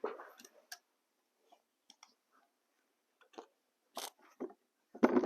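A few scattered light clicks and rustles of handling, with a louder knock near the end; no shot is fired.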